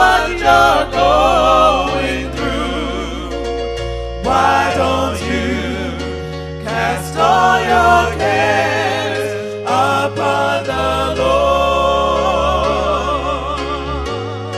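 Gospel song: voices singing with vibrato over sustained chords and a steady bass line.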